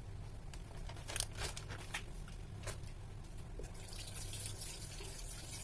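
Soft clicks and rustles of kitchen handling over a steady low hum, then a hiss from about four seconds in.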